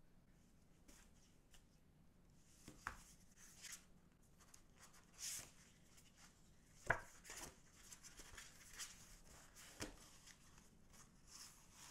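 Faint handling sounds of an album's paper photobook, inserts and photocards in plastic sleeves being moved by gloved hands: brief rustles of paper sliding and a few soft taps, the sharpest about seven seconds in.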